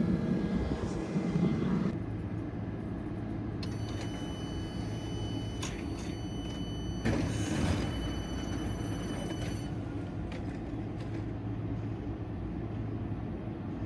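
Train at a station: a steady low hum, with a high steady whine for several seconds and a short hiss of air about halfway through.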